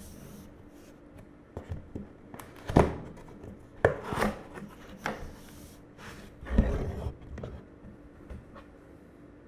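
Handling sounds of a mechanical keyboard and its packaging being moved around: irregular rubbing and sliding with a few soft knocks, the loudest near the middle and about two-thirds of the way through.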